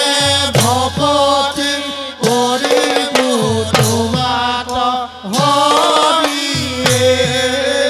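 Assamese nam-prasanga devotional singing: a group of men chanting a hymn together, with large hand cymbals clashing about every second and a half and a drum whose low strokes slide down in pitch.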